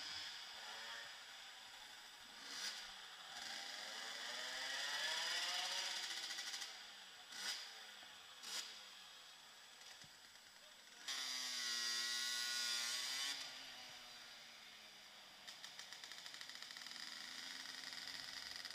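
Small engine revving up and down, with a couple of quick throttle blips around the middle, then a loud, steady burst of high revs lasting about two seconds.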